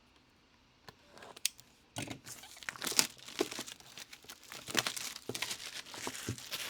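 Plastic trading-card pack wrapper being torn open and crinkled by hand, with dense crackling from about two seconds in after a couple of small clicks.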